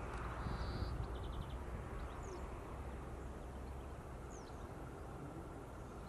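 Open-field ambience: a steady low rumble with a few faint, thin bird calls over it, a short buzz and a quick run of notes in the first second and a half, then two brief falling whistles.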